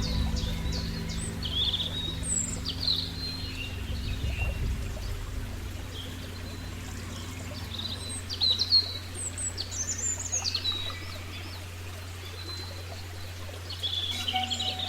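Small birds chirping and singing in short, scattered calls over a low, steady ambient music drone.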